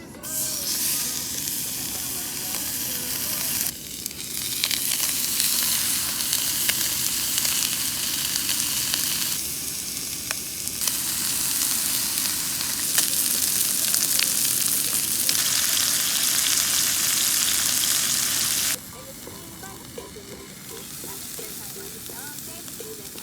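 Pork neck sizzling and frying in a hot pan, a steady dense hiss that changes level abruptly several times and is quieter near the end.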